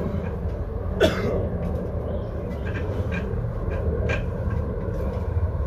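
A steady low rumble, with faint scattered clicks. About a second in comes one short, sharp vocal sound that falls in pitch.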